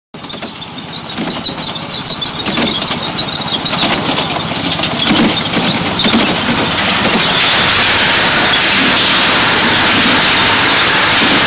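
Miniature park railway train running along its track, wheels clicking over the rail joints with a thin high squeal. The sound grows louder and turns into a steady rushing noise about seven seconds in, as the train enters a tunnel.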